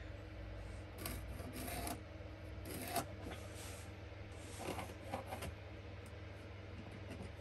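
Pencil scratching on wood: several short marking strokes along a wooden box lid, over a steady low hum.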